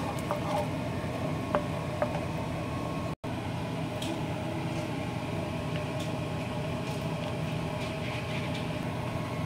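Steady hum of a kitchen fan, with a few light clicks of a wooden spoon against a non-stick frying pan in the first two seconds. The sound drops out for an instant about three seconds in.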